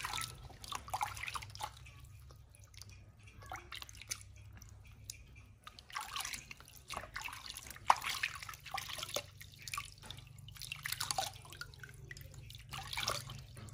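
Water dripping and splashing from cupped hands into a small plastic tub as a newborn monkey is rinsed, in irregular short bursts over a steady low hum.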